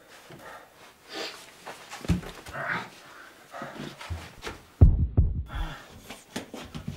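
A man breathing hard and gasping in distress, with heavy low thuds about two seconds in and again, loudest, near five seconds.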